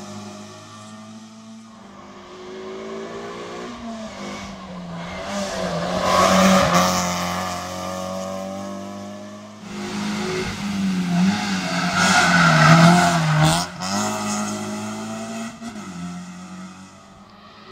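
Toyota Yaris Cup rally car at full throttle on a tarmac stage, its engine revving up and down through gear changes. It is loudest as a car passes close, about six seconds in and again about twelve seconds in.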